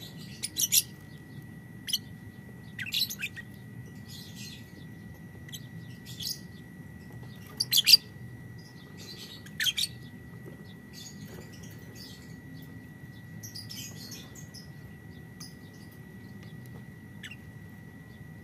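Lovebirds chirping in short, shrill calls: a quick run of loud chirps in the first ten seconds, then fainter, scattered ones.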